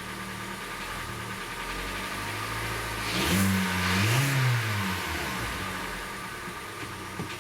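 2013 Hyundai Elantra's 1.8-litre G4NB four-cylinder engine idling, revved briefly about three seconds in and settling back to idle. The engine has a knock that the mechanic thinks most likely comes from a piston, though it could also be the piston pin, crankshaft or a hydraulic lifter.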